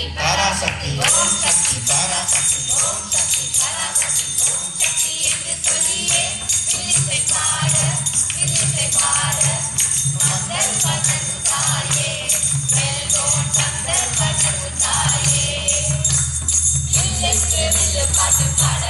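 Villu paattu (Tamil bow-song) music: voices singing together, with the jingling bells of the decorated villu bow and a steady low beat about once every three-quarters of a second.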